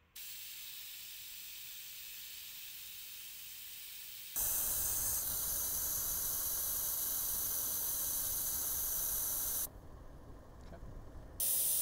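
Air hissing out through tire valves as off-road tires are aired down from about 34 to 20 psi for grip on rocks. A steady hiss, much louder from about four seconds in, dropping away near the end and returning briefly at the close.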